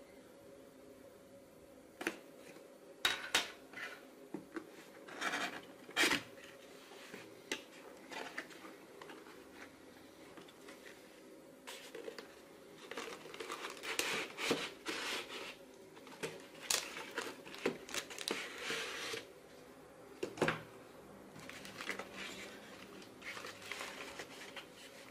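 A cardboard retail box and its packing being handled and opened by hand: irregular taps, scrapes and crinkling rustles as the flaps are opened and the white packing inserts holding the drive are lifted out. A faint steady hum sits underneath.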